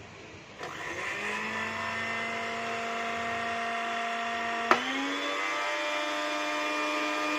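Nasional Vitara VTR-106 electric blender running empty with its jug fitted: the motor is switched on, whines up to speed and runs steadily. A click comes about four and a half seconds in, after which the pitch steps up to a higher speed.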